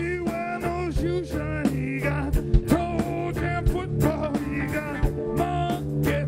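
Live blues-funk band playing an instrumental passage: a harmonica lead with notes bending up and down, over a steady drum beat, bass and electric guitar.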